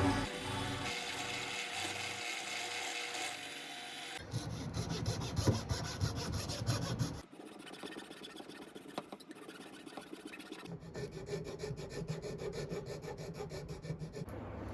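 Hand filing: rubbing, rasping strokes of a file across a workpiece, in a few short stretches that change abruptly.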